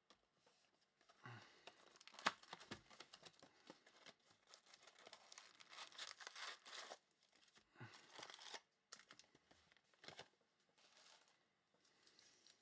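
A cardboard Panini Prizm Fast Break card box is torn open and its foil-wrapped packs are slid out and stacked. Irregular tearing, crinkling and rustling, with a sharp crackle about two seconds in, then fainter rustling near the end.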